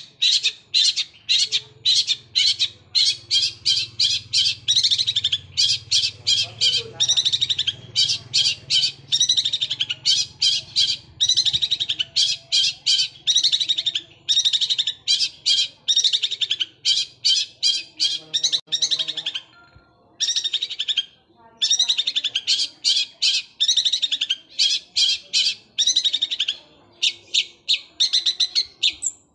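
Long-tailed shrike (cendet) singing in rapid-fire chattering bursts, short fast phrases repeated one after another with brief breaks: the sewing-machine-like 'tembakan' rattle.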